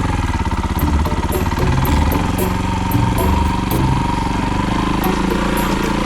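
An engine running steadily with a fast low pulsing.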